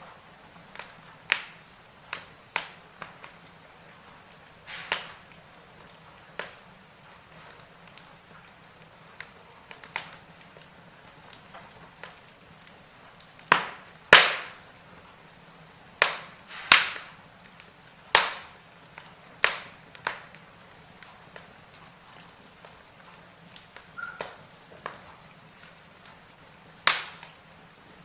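Fire in a fireplace crackling: irregular sharp pops and snaps over a faint steady hiss, with a few of the loudest pops a little past the middle.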